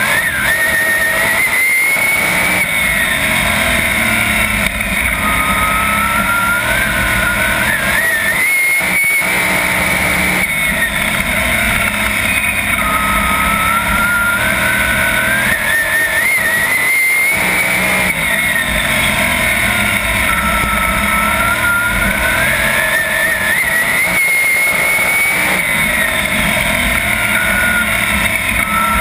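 A 410 sprint car's methanol-burning V8 at racing speed, heard from on board. The revs climb steadily and then drop sharply as the driver lifts, about every seven to eight seconds, once each lap.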